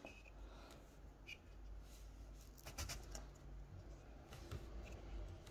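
Quiet handling sounds: a few faint clicks and taps as a plastic cookie cutter is pressed through soft rolled fondant onto the table, over a low steady room hum.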